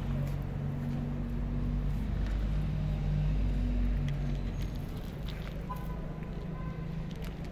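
A low, steady hum with shifting low tones, over which a kitten crunches dry kibble from a plastic plate in small, scattered clicks.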